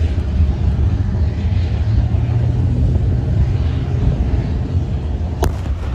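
A steady low rumble with a hiss above it, and one sharp click about five and a half seconds in.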